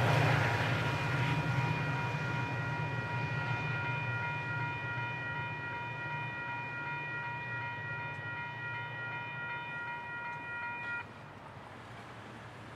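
Metra commuter train rumbling away into the distance, fading steadily after its pass. Over it a railroad crossing bell rings with a steady ring, then cuts off suddenly about eleven seconds in.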